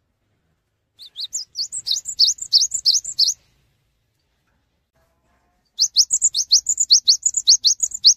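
Cinereous tit (gelatik batu) singing two bursts of quick, rising, high notes, about six a second, each burst lasting over two seconds.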